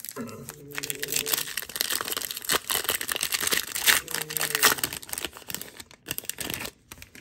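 Foil wrapper of a Panini Mosaic football card pack crinkling and tearing as it is ripped open by hand, a dense crackle with sharp snaps, loudest a little past the middle.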